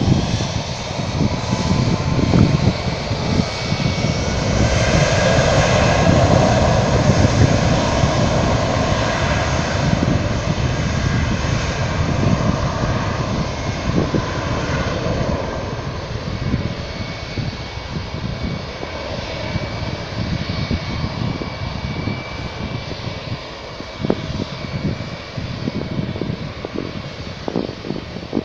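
Bangkok Airways jet airliner's engines at takeoff thrust, a loud roar with a steady high whine. It swells about five seconds in as the takeoff roll begins, then slowly fades as the plane speeds away down the runway.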